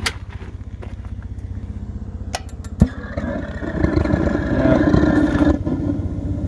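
A steady low pulsing rumble, like an engine idling, runs throughout. A sharp click comes near the middle, followed by a louder rushing hum for about two and a half seconds.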